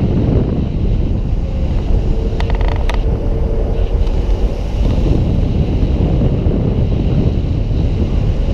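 Steady rumble of a moving vehicle on the road, with wind buffeting the microphone; a few quick clicks come about two and a half seconds in.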